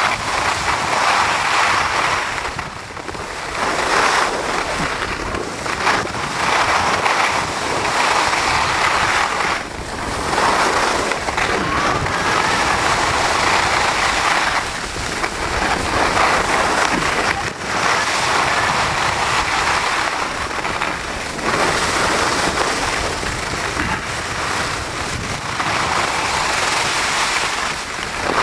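Skis hissing and scraping over packed snow on a fast downhill run, mixed with wind rushing on the microphone. The noise swells and drops back every few seconds.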